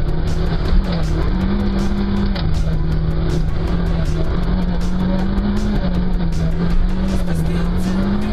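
A motor vehicle's engine running steadily, its pitch stepping up and back down every second or two as the revs change.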